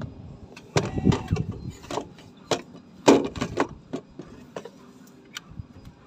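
Hands handling the plastic parts of an electric water heater: irregular clicks and knocks, clustered about a second in and again around three seconds in, then a few single clicks.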